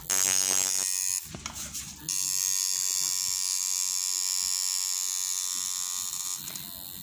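Electric tattoo machine buzzing steadily as the needle works ink into the skin, with a short dip about a second in before it runs on.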